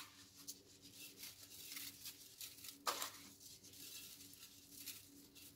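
Faint rustling patter of a salt-and-pepper mix sprinkled by hand onto raw goat kid meat in an enamel roasting pan, with a slightly louder rustle about three seconds in.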